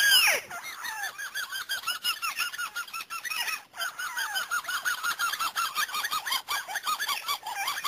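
White-browed crake calling: a loud downward-sliding note at the start, then a fast chattering run of short rising-and-falling notes, about five a second.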